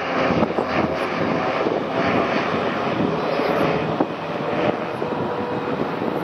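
Airliner engines running, a loud, steady rush of noise.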